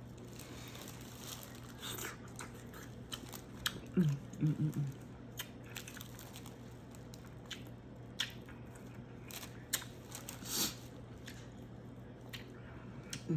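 Close-up chewing and mouth smacking while eating a seafood boil, scattered wet clicks and crunches. A short hummed "mm" about four seconds in.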